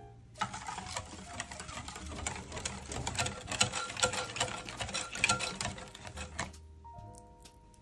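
Stainless-steel balloon whisk beating melted dark chocolate into whipped eggs and sugar in a glass bowl: fast, continuous rattling and clicking of the wires against the glass through the wet batter. The whisking stops about six and a half seconds in.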